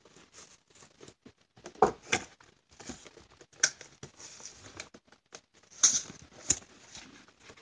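Cardboard Pokémon TCG collection box being opened by hand: irregular rustling and scraping of cardboard flaps and packaging, with a few sharp snaps and taps, the loudest about two seconds in and about six seconds in.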